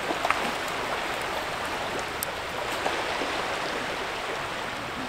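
Steady soft wash of small sea waves on the shore, an even hiss without a beat.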